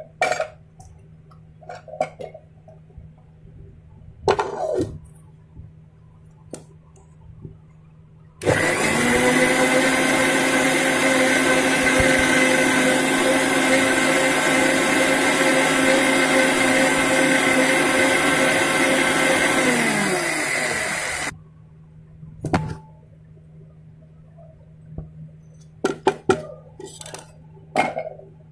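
Electric mixer grinder blending jamun (black plum) pulp with sugar. A few knocks and clicks of the jar being handled come first. Then the motor starts abruptly about eight seconds in, runs steadily for about twelve seconds, and drops in pitch as it winds down before stopping. More clicks and knocks follow.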